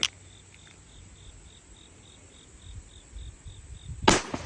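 A single loud .357 Magnum revolver shot about four seconds in, firing an Underwood Extreme Penetrator round, with a decaying echo after it. Before it, a sharp click at the very start and a cricket chirping in an even pulse, about four chirps a second.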